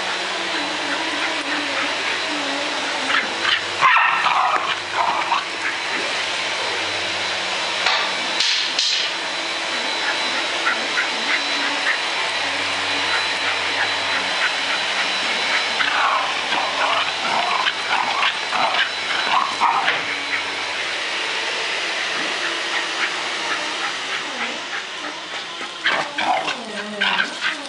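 Small terrier-type dog giving short bursts of excited whines and yips while playing ball, eager for the ball to be thrown. The bursts come about four seconds in, around eight seconds, for several seconds in the middle, and again near the end, all over a constant background hiss.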